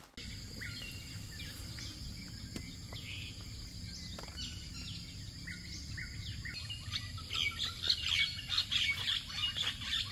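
Several birds chirping and calling, a few scattered calls at first and a busier chorus of quick chirps in the second half, over a low steady background rumble.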